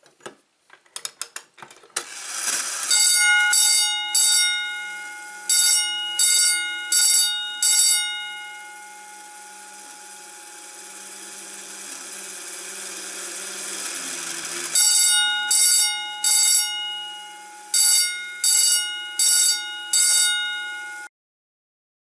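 Simplex 4080 10-inch high-output vibrating bell ringing in short coded bursts of about four strokes per group, pulsed by a clockwork coded pull station. There is a long pause partway through, and the bell cuts off suddenly near the end. It is preceded by a quick run of clicks as the pull station's lever is pulled.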